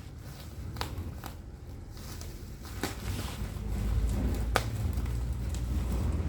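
Parcel being opened by hand: rustling and crinkling of packaging with a few sharp clicks, and a low rumble that builds up from about halfway.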